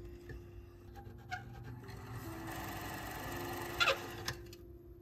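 Watch cleaning machine's motor spinning the parts basket in its heated drying chamber, a steady whir. A few sharp clicks come through it, the loudest a little before the end.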